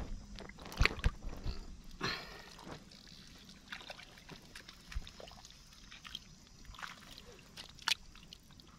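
Wet paddy mud and muddy water squelching and sloshing now and then as a crab hole is dug out by hand and spade, with sharp wet slaps about a second in and near the end.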